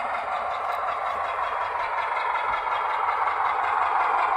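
Recorded diesel engine sound of a Ruston 48DS shunter, played by a DCC sound decoder through a tiny sugar cube speaker inside an OO gauge model locomotive as it runs along the track. It is thin, with little bass, and grows louder as the model comes closer.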